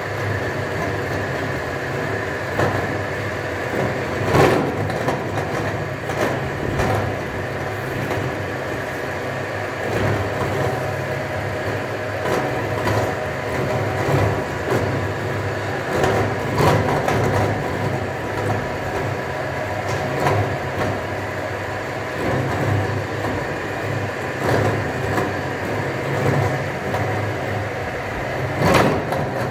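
CNC rack cutting machine running, its cutter cutting teeth into a metal rack bar: a steady machine hum with short knocks every few seconds.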